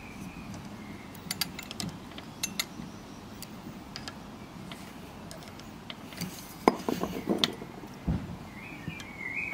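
Light metallic clicks and taps from oiling a Mamod MM2 model steam engine: a brass oil can's spout touching the engine's oscillating cylinder, then a quick run of clicks about six to seven and a half seconds in as the cylinder is rocked on its pivot, with a single knock just after.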